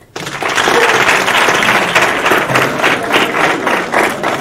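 Audience of students applauding: a burst of many hands clapping starts abruptly just after the start and carries on steadily.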